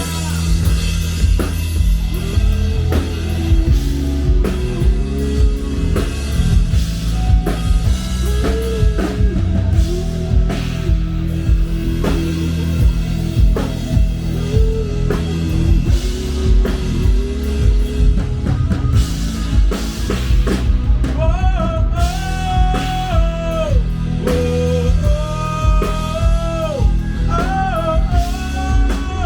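Rock band playing live, with drum kit, bass and electric guitar under a melody line that moves higher about twenty seconds in.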